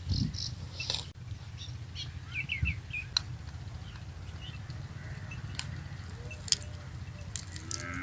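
A buffalo tearing and munching grass in the first second, then small birds chirping with a few sharp clicks over a low steady rumble. Near the end a water buffalo begins a long moo.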